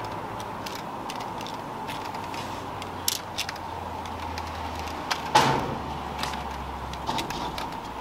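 Short knocks and rattles of a long-handled landing net being handled against a brick wall, the loudest a little after five seconds in, over a steady low background hum.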